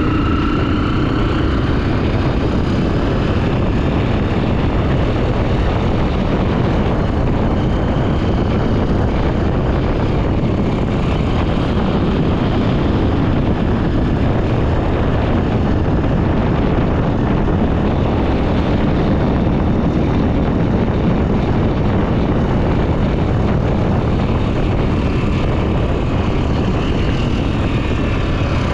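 Honda XR 250 Tornado's single-cylinder four-stroke engine running steadily under way, mixed with a steady rushing noise, with no sharp events.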